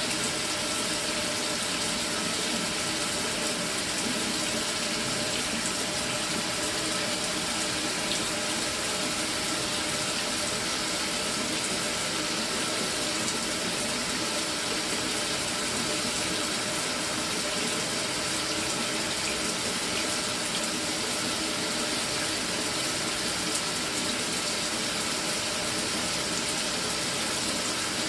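Electric shower running with a steady, unbroken flow of water, with no cutting out: the flow holds now that the failed solenoid valve has been replaced.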